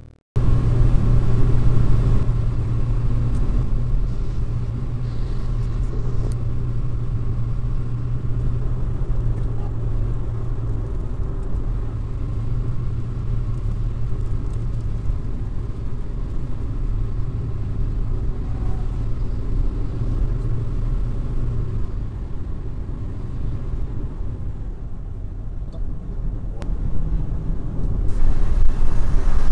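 Car interior noise while driving at motorway speed: a steady low engine and road drone mixed with tyre noise. It starts abruptly just after a brief gap and grows louder near the end.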